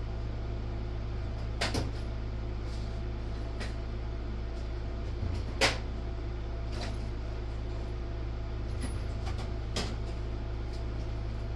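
Rummaging for a pair of needle nose pliers among drawers and tools: a few scattered knocks and clatters, the loudest about five and a half seconds in, over a steady low hum.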